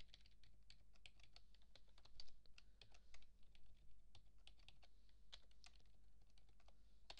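Faint typing on a computer keyboard: irregular keystroke clicks.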